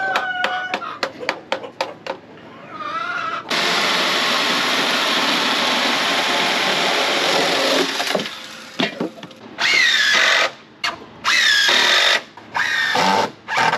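Cordless drill driving screws into the wooden roof framing: one long run of about four seconds, then several short bursts with the motor whine rising and falling. A quick series of clicks comes before it.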